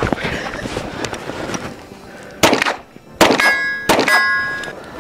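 Three gunshots from a 9mm Kriss Vector carbine, a little under a second apart. The second and third are each followed by the ringing of a struck steel target.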